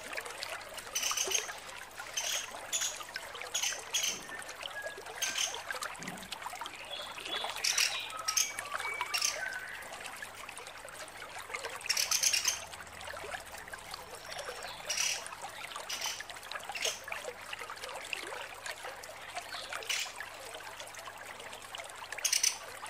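Female pelatuk sampit, a small pied woodpecker, giving short, high, rapid rattling trills over and over, over a steady background hiss.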